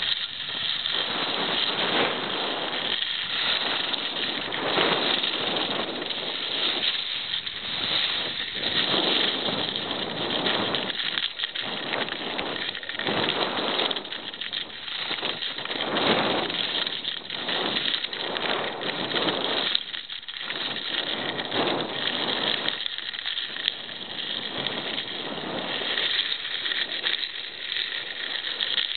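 Skis hissing and scraping over groomed snow during a downhill run, the sound swelling and fading every couple of seconds with each turn.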